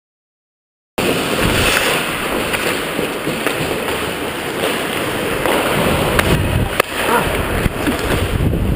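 Ice hockey heard from a helmet camera: skate blades scraping and carving the ice under a steady rush of noise, with a few sharp clicks of stick on puck. The sound starts abruptly about a second in and cuts off just before the end.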